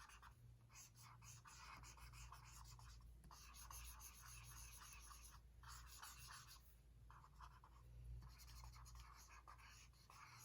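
Faint scratching of colouring strokes on paper, in stretches of a second or two with short pauses between them.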